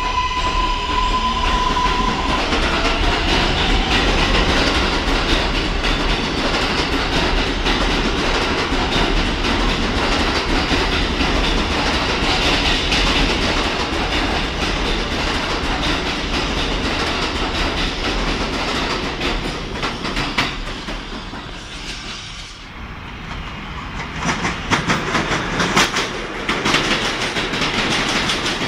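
A 7 train of R188 subway cars pulling out of an elevated station. A steady high tone in the first two seconds gives way to steady wheel and rail noise as the cars roll past. After a brief drop, a second train passes through with a rhythmic clatter of wheels over the rail joints.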